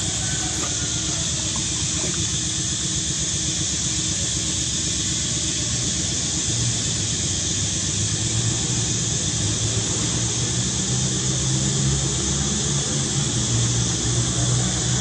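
Steady high hiss of outdoor background noise, with a low hum coming in about halfway and growing slightly louder toward the end.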